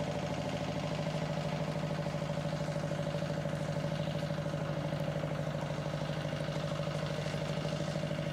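Steady drone of an engine running at constant speed, with a fast, even flutter in its loudness and no change in pitch.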